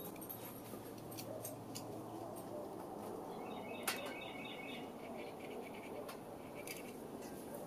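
Quiet outdoor background with a small bird twittering briefly about halfway through, a quick run of high chirps. A single sharp click sounds at the same moment, the loudest thing here.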